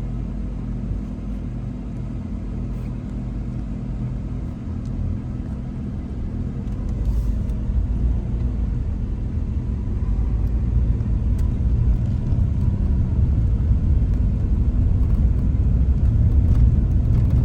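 Low, steady rumble of a banana train running, which grows louder about six and a half seconds in.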